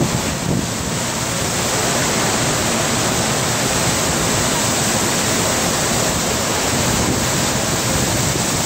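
FlowRider surf simulator's pumped sheet of water rushing steadily up the padded ramp, a loud even rush.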